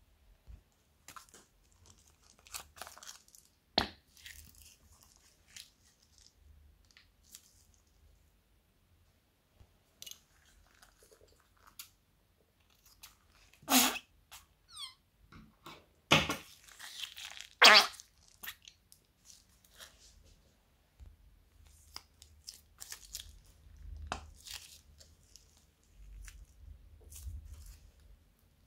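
Thin plastic bags crinkling and rustling in the hands as they are squeezed and emptied, in scattered short crackles, with a few louder crinkles a little past the middle.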